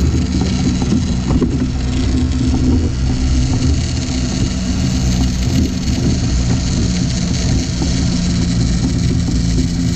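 Small outboard motor running steadily at trolling speed, over the rush of the boat's wake and wind.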